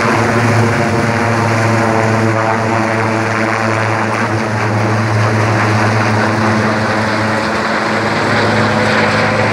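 Large four-bladed turbine helicopter passing overhead, its rotor and engines making a steady, loud drone.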